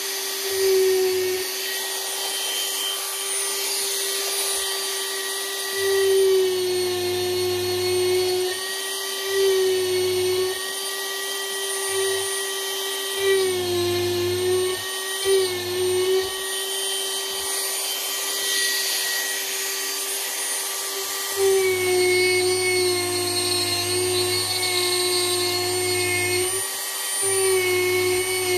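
Dremel rotary tool carving wood, running with a steady high whine. Its pitch dips briefly at times as the bit bears into the wood, and a lower rumble comes and goes underneath.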